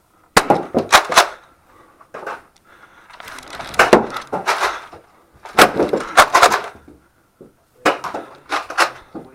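Sharp clacks and knocks in quick clusters of two or three, several times over: foam-dart blasters being primed and fired, with darts striking hard surfaces.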